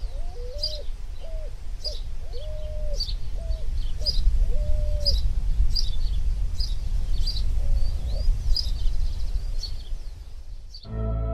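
Birds calling: a short high chirp repeated about every three-quarters of a second, and a lower hooting call of several notes in the first half, over a steady low rumble. Near the end this cuts off abruptly into ambient music of sustained tones.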